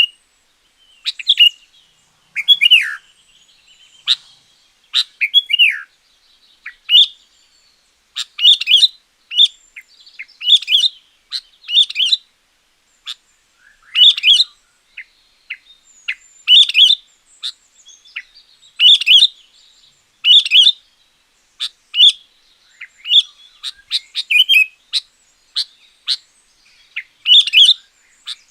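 Sooty-headed bulbul singing: loud, short whistled phrases repeated every second or two, some with falling notes.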